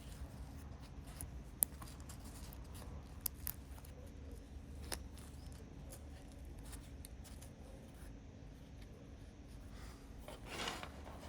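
Scattered light clicks and taps from small objects being handled, over a low steady hum, with a brief scraping sound near the end.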